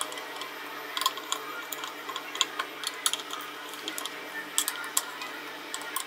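Small screwdriver tightening the spring-loaded cooler screws on a PowerColor Red Devil RX580 graphics card: irregular light clicks and ticks of metal on metal.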